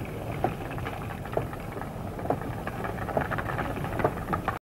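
Lava erupting underwater: a steady low rumble with irregular sharp cracks and pops, roughly one or two a second, as the lava cools and congeals in the sea. It cuts off suddenly near the end.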